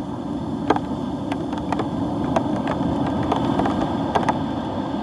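Steady rumble of big, pounding surf and wind, heard muffled through a hard plastic dive case around the camera, with scattered sharp ticks against the case.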